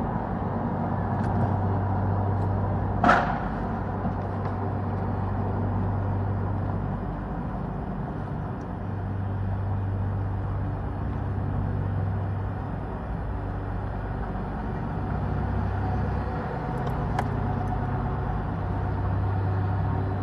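A steady low rumble with a hum, slowly swelling and easing, with one brief sharp sound about three seconds in.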